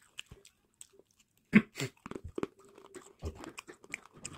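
Crunching of thick-cut Mumuttuk sweet potato chips being bitten and chewed close to the microphone: a run of sharp crackles, with a loud bite about one and a half seconds in and another near three seconds.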